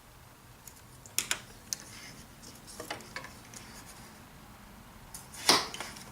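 Light clicks and taps of small balsa wood strips being handled and worked at the bench, with one sharper, louder snap about five and a half seconds in.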